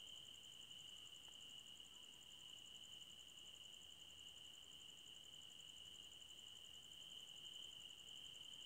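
Faint, steady chirring of crickets: a high, even trill with a finer pulsing shimmer above it.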